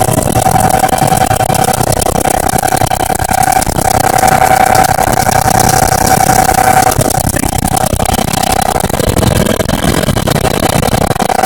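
Loud, steady engine and rotor noise of a helicopter in flight, heard inside its cabin, with a steady high whine over it that weakens about seven seconds in.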